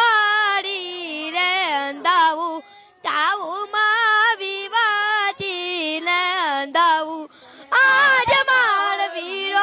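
A high voice singing a Gujarati wedding song (lagna geet) solo, in ornamented, wavering phrases with short breaths between them.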